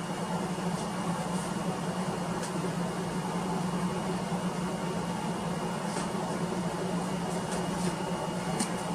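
Desktop PC's cooling fans running with a steady, even hum, with a few faint clicks.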